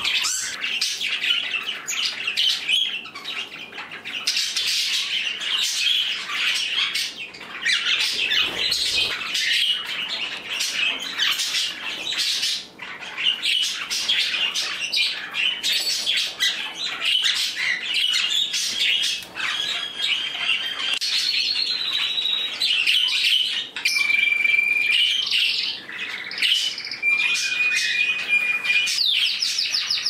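Mixed indoor flock of pet budgies, canaries and small parrots chattering, chirping and squawking nonstop, with several clear held whistled notes in the second half.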